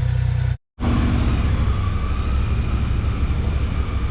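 A vehicle engine running steadily. The sound cuts out completely for a moment about half a second in, then the engine runs on at the same level.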